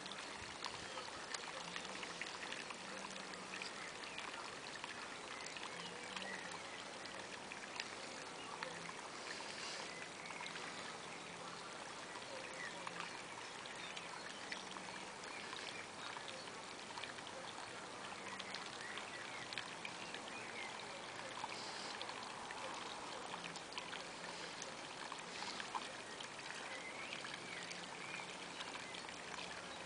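Faint, steady trickling of water with small irregular splashes and ticks, water running from a collapsed inflatable paddling pool across its wet tarp.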